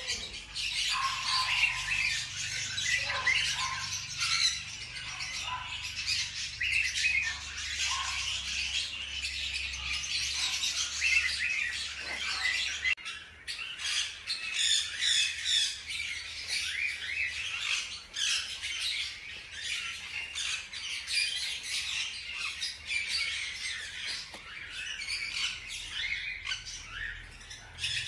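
Newborn hamster pups squeaking over and over in short, high, chirping cries, with the light rustle of dry sunflower-seed husks as the mother moves through the bedding.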